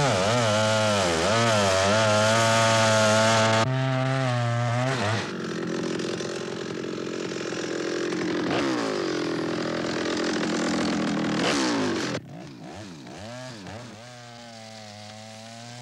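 Two-stroke chainsaw cutting into a large tree trunk at full throttle, its pitch wavering as the chain bites into the wood. About twelve seconds in it drops much quieter, the engine note rising and falling before settling into a steady lower run.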